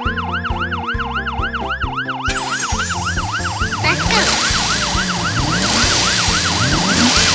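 Emergency siren in a fast yelp, rising and falling about four times a second without a break, over background music with a steady beat; a rushing hiss joins it partway through.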